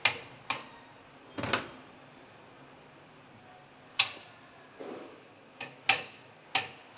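Soft-faced mallet tapping a metal cable guard into place on a Grundfos SP submersible pump: about eight sharp knocks, irregularly spaced, with a pause of over two seconds in the middle and several knocks close together near the end.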